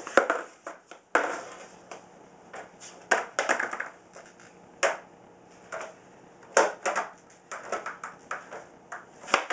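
Skateboard on a bare concrete floor: the tail popping down, the deck clacking and the wheels slapping back onto the concrete as ollies are attempted, with sneaker scuffs in between. A series of separate sharp knocks, the loudest just after the start, about a second in and just before the end, with a cluster around three seconds in.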